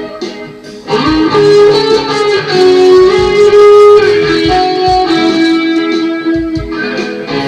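Electric guitar being played: after a short dip, long held notes start about a second in, one sliding up in pitch, then several sustained notes that change pitch every second or so.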